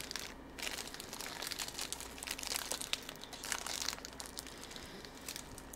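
Crisp, irregular crinkling and crunching from eating small crunchy chocolate-cream cookies out of their plastic snack packaging.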